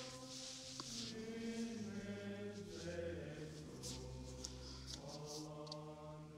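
Quiet background music of sustained, choir-like chanted notes, each held for a second or two before moving slowly to another pitch. A few short, faint breathy hisses sound over it.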